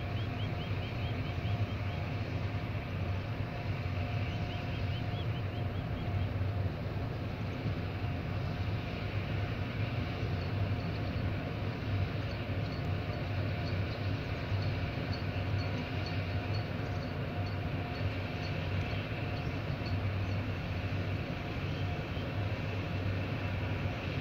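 Steady low hum of a large cruise ship's engines and onboard machinery as the ship moves slowly past, with a few faint steady tones riding on top.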